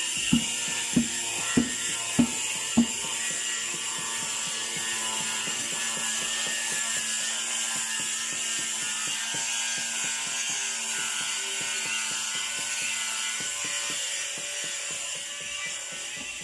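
A plastic bucket knocked five times, about half a second apart, each with a short ring, to empty out the last of the mortar. Then a long run of light, rapid clicking and scraping.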